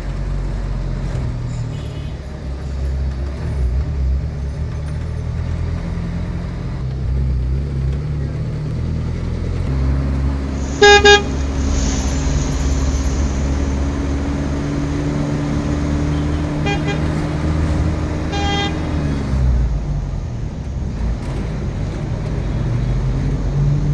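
Street traffic with a steady low engine rumble. A loud vehicle horn sounds about halfway through, then two shorter horn toots a few seconds later.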